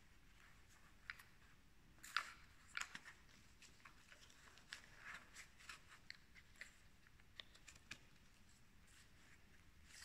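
Faint rustling and clicking of a kitesurf harness spreader bar being handled and strapped around the waist: webbing, buckles and plastic fittings, with a few sharper clicks about two and three seconds in.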